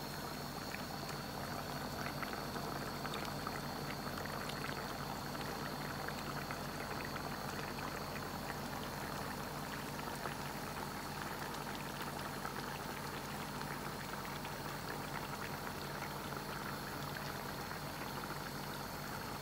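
Chicken curry simmering in a pot on the stove, with a steady crackle of small bubbles popping at the surface.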